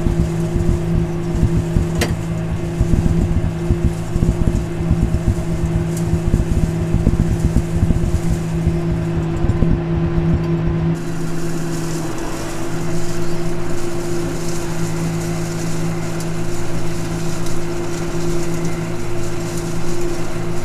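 Kubota tractor engine running at a steady speed, heard from inside the cab. Through the first half there are low knocks and rattles from the cab jolting over rough ground, and they stop about halfway.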